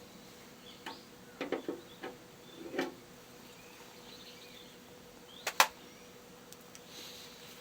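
Metal parts and tools clunking and clinking while a tractor front axle is taken apart, with one sharp, loud metallic knock about five and a half seconds in. Faint chirping runs in the background.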